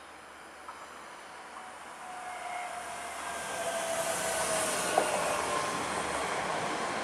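Bombardier Talent 2 (BR 442) electric multiple unit approaching and running in alongside the platform, its rolling noise swelling steadily louder, with a faint whine that drifts slightly down in pitch. A single sharp wheel click about five seconds in.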